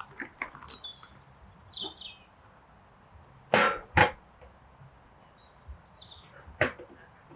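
Three sharp chopping knocks: two loud ones about half a second apart in the middle, then a lighter one near the end. Small birds chirp in the background.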